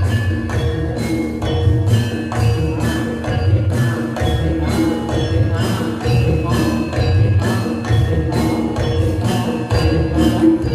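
Javanese gamelan playing jathilan dance music: bronze metallophones struck in a steady, even stream of ringing notes over a low drum pulse.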